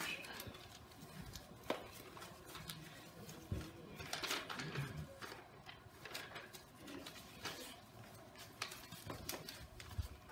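Sheets of paper rustling and shuffling as they are handled and leafed through close to a microphone, with scattered light clicks and knocks. The longest rustle comes about four seconds in.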